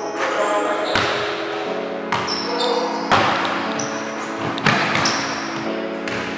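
A basketball bouncing and striking the hoop on a gym court: a few sharp thuds about a second in, around three seconds and near five seconds. Background music plays under it.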